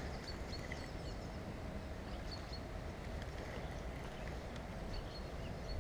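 Low, steady rumble of wind and handling noise on the camera's microphone, with faint, short bird chirps now and then.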